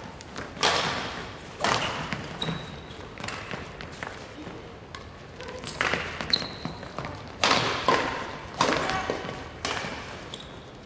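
Badminton rally: rackets striking a shuttlecock with sharp cracks roughly once a second, each ringing on in the echo of a large sports hall, with a few short high squeaks of shoes on the wooden court floor.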